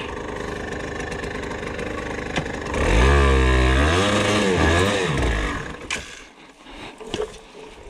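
Yamaha TDR 125's two-stroke single-cylinder engine idling, then revved hard about three seconds in, its pitch rising, dipping and rising again for a couple of seconds. Around six seconds in the engine sound falls away to a low level.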